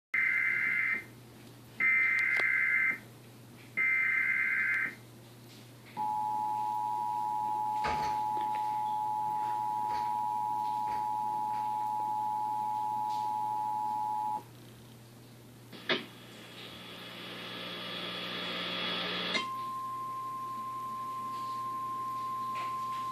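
Emergency Alert System tones. First come three roughly one-second bursts of the warbling SAME header data signal, then the two-tone EAS attention signal held steady for about eight seconds. After a click and about three seconds of hissing static, the single steady NOAA Weather Radio warning alarm tone starts and keeps going; the sequence announces a tornado warning.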